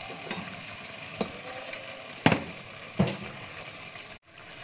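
Meat and chickpeas frying in oil in a pot: a steady sizzle with several sharp clicks and knocks, the loudest about two seconds in and again a second later. The sound cuts out briefly near the end.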